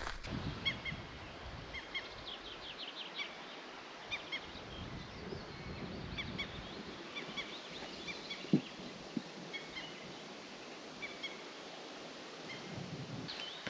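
Birds calling repeatedly with short, high chirps scattered throughout, over a steady outdoor rush of noise. A single sharp knock about two-thirds of the way through.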